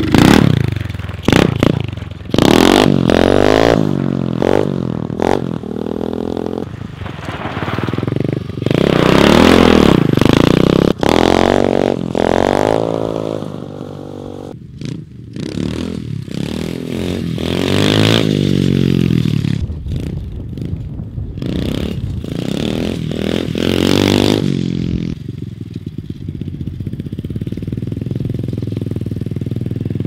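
SSR 125 pit bike's four-stroke single-cylinder engine revving up and down over and over as it is ridden, then settling to a steadier, lower running sound for the last few seconds.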